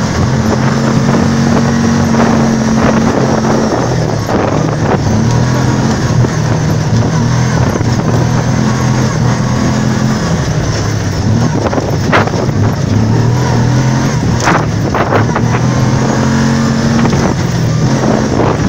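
ATV engine running while driving along a dirt trail, its note stepping up and down as the throttle changes, over a steady rush of noise; a couple of sharp knocks or rattles come past the middle.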